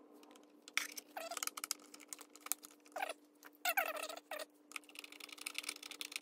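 Busy clicks, taps and rattles of a Bose SoundTouch 20 speaker's plastic housing and power adapter being handled and turned over, with a few short squeaky scrapes. A faint steady hum sits underneath.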